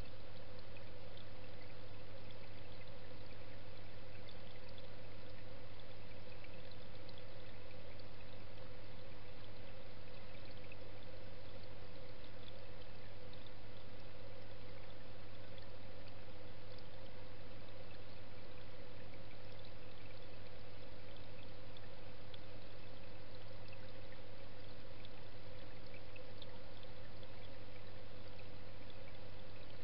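Steady underwater rush of moving water with an unchanging low hum, as picked up by a camera submerged in a fish pond with pump hoses running through it.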